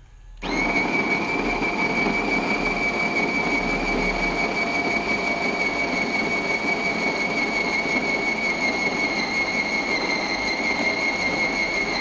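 Grind-and-brew coffee machine starting its brew cycle. Its built-in bean grinder starts about half a second in and runs steadily with a high whine.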